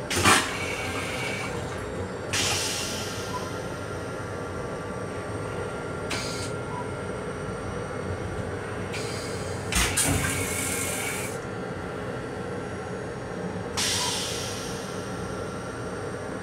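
Restroom of an M7 commuter railcar: a sharp thud and a hiss near the start, typical of the toilet flushing. Further short hisses follow every few seconds over the steady running noise of the train.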